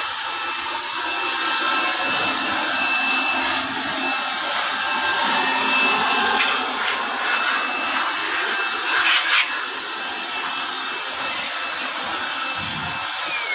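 A steady, loud, high hiss of a pressurised jet spraying on a dehumidifier unit as it is cleaned during service, with a faint steady whine beneath it. There is a short low thud near the end.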